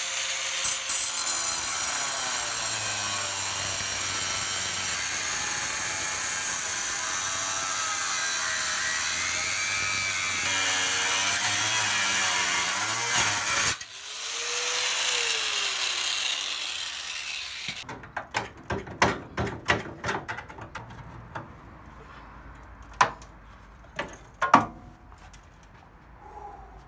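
Cutoff-wheel grinder slicing through the steel lower radiator support, a steady high whine that wavers as the disc loads up in the cut. It stops about 14 s in, runs again briefly and winds down, then a string of sharp metal knocks and clanks follows as the cut-out support is worked loose.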